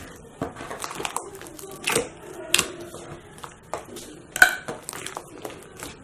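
Slime being squeezed and worked by hand, giving scattered clicky pops and crackles, with a few louder pops about two, two and a half and four and a half seconds in.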